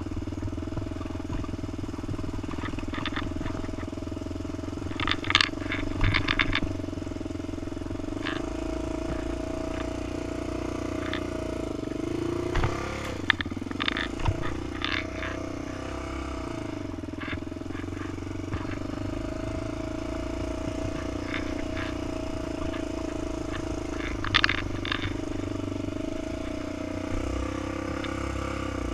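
Honda TRX400EX quad's single-cylinder four-stroke engine running steadily while riding a rocky dirt trail, its pitch dipping and rising once about midway. Several short bursts of rattling clatter from the machine going over rough ground break in along the way.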